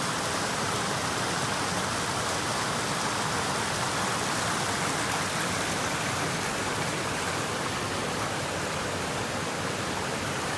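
Steady rushing of water from a waterfall, an even noise that holds at one level throughout.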